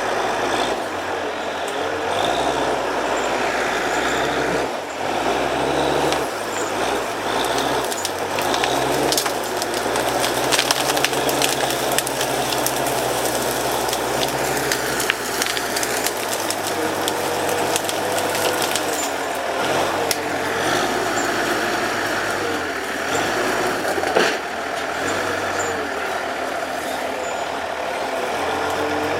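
Heavy diesel machinery working, its engine note stepping up and down under load, with scattered metallic knocks and one sharper bang near the end.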